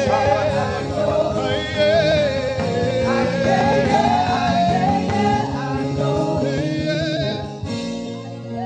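Music with singing: a wavering sung melody over sustained instrumental chords.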